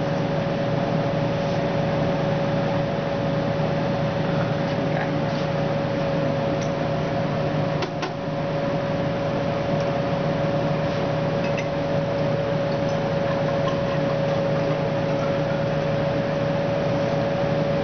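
Steady mechanical hum with a constant mid-pitched tone, with a few faint clicks, the clearest about eight seconds in.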